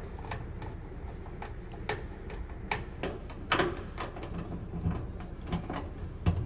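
Scattered clicks and knocks of screws being taken out of a washing machine's back panel with a tool, over a steady low hum.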